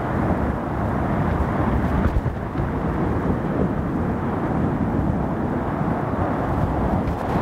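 Rough sea surf breaking against a rocky shore: a steady, low wash of waves with no distinct single crashes standing out.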